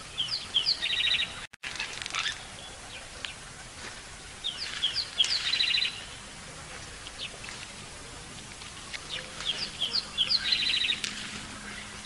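A bird singing the same short phrase three times, about every five seconds: a few quick high chirps followed by a fast rattling trill. The sound drops out for an instant shortly after the first phrase.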